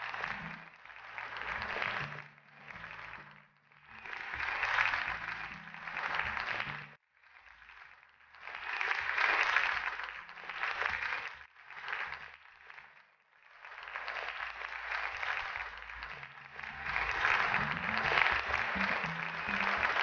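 Closing background music with low plucked-string notes, under a hiss that swells and fades every few seconds.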